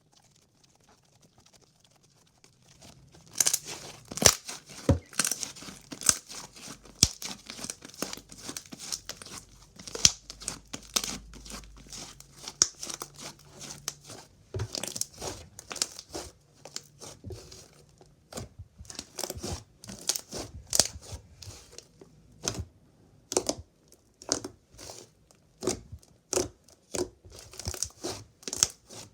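Slime being squeezed and stretched by hand, making rapid irregular crackling and popping clicks that start about three seconds in.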